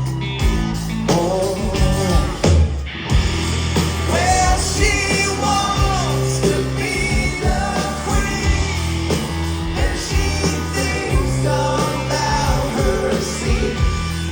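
Live rock band playing with a singing voice over a steady bass and drums, heard as a loud concert mix.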